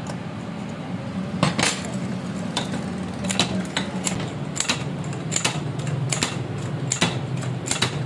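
Repeated metal-on-metal clinks, about two a second from a second or so in, as a spanner turns the nut on a homemade bearing puller seated in a ceiling fan's rotor housing. A steady low hum runs underneath.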